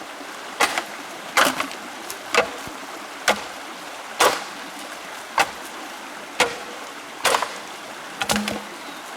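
A series of sharp knocks or strikes, about one a second, over a steady hiss.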